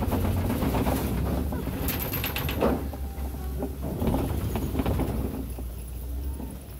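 Safari ride truck on the move, with a steady low rumble and a short spell of rattling and clattering about two seconds in.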